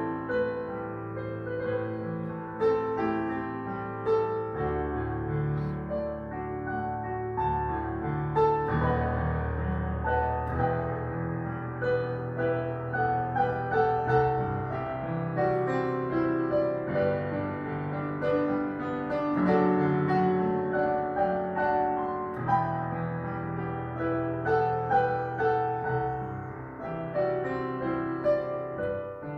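Slow instrumental piano music: a melody played over held chords and long bass notes.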